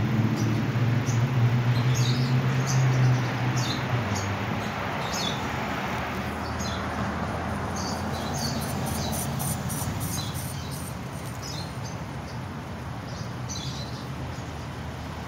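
A vehicle engine idling for about the first four seconds, then fading, under an even outdoor background hiss. Short, high chirps repeat irregularly throughout.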